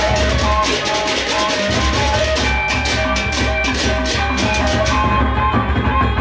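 Gendang beleq ensemble playing: large double-headed barrel drums beaten with stick and hand give a steady low pulse, under interlocking metallic gong-chime notes and rapid cymbal strokes. The cymbal strokes thin out about five seconds in.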